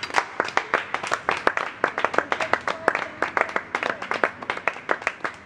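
A small group of people clapping, the claps uneven and close together.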